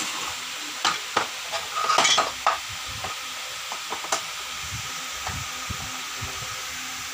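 Clicks, knocks and a brief scraping rattle of a plastic induction-cooktop casing being handled and a screwdriver worked at its base screws, with the loudest scrape about two seconds in, over a steady hiss.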